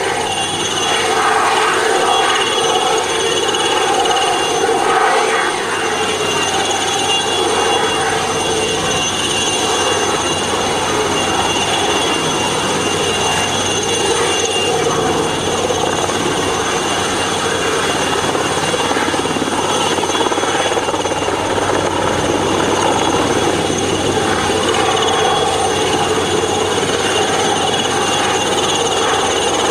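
Helicopter holding its position overhead while it lowers a netting panel on a long line, running steadily with a constant high whine over the rotor noise.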